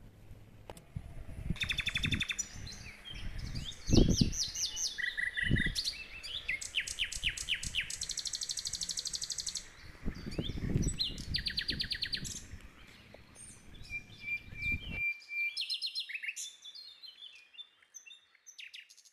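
Songbirds chirping and singing in rapid trills, several calls overlapping. Low thuds and rumbles underneath, the loudest about four seconds in, stopping abruptly near the end.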